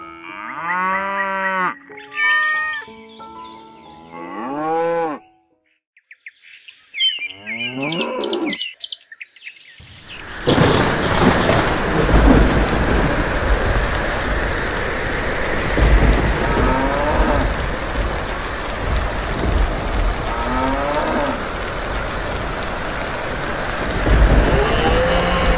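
Stock thunderstorm sound effect: heavy rain comes in suddenly about ten seconds in, with low thunder rumbles and cows mooing twice through it.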